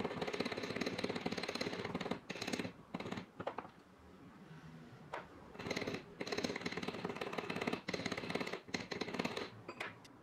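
Small steel jeweller's hammer tapping twisted 20-gauge brass wire against a steel bench block: runs of rapid, light metal-on-metal taps, flattening the twist slightly. The tapping pauses for a couple of seconds partway and stops near the end.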